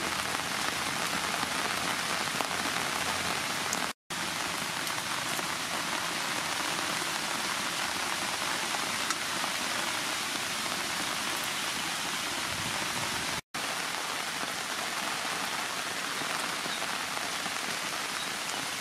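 Steady rain falling outdoors, a constant even hiss that cuts out twice for an instant.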